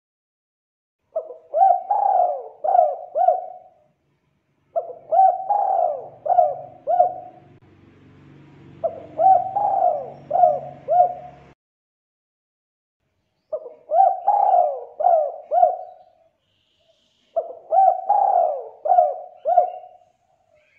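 Spotted dove cooing: five repeated phrases of several quick coos each, a second or two apart.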